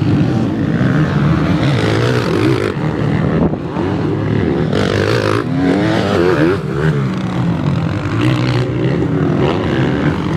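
Several motocross bikes racing on a dirt track, engines revving up and down through a bend and a climb, with one bike passing close about halfway through.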